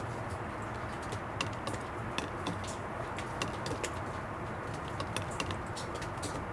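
Water dripping onto plastic in an irregular patter of sharp ticks, a few drips a second, over the steady low rumble of distant traffic.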